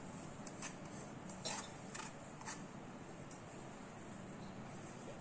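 A few faint light taps and clicks as chopped onion is shaken off a plastic vegetable-chopper tray into a steel mixing bowl, over quiet room hiss.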